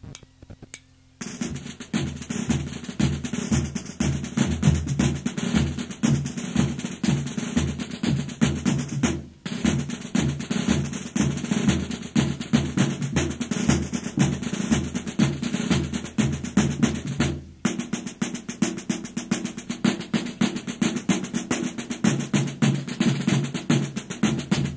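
Snare drums and a bass drum of a Galician bagpipe band (caixa and bombo) playing a fast, dense drum passage full of rolls. The drums come in about a second in, after a few faint clicks, and pause twice briefly.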